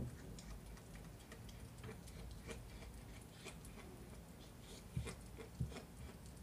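Schnauzer puppy gnawing a raw chicken drumstick: faint, irregular clicks of teeth on meat and bone, with a few louder knocks at the start and twice about five seconds in.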